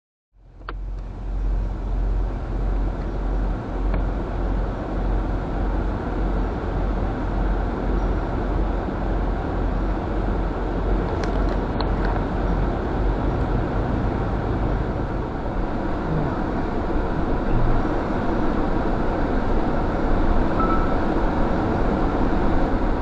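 Four-wheel-drive vehicle driving slowly on a dirt track, heard from inside the cabin: a steady low engine and road rumble that cuts in suddenly about half a second in.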